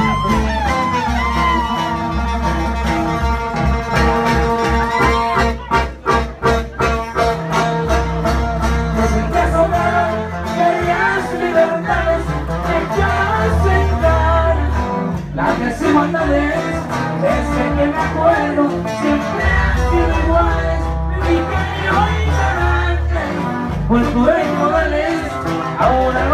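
Live band music played loud, with a strong bass line and a steady beat, electric bass among the instruments.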